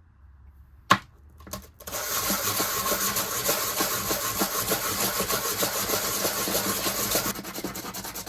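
A sharp knock about a second in, then rapid back-and-forth scraping strokes of a hand tool worked against a workpiece, which drop in level near the end.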